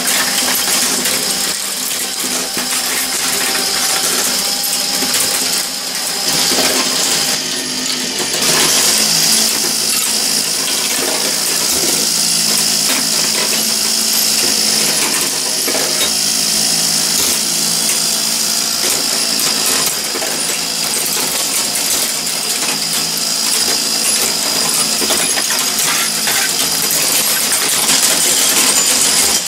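Meccano marble machine running: glass marbles rolling and clattering along its steel chutes, with a continuous busy metallic rattle of many small clicks.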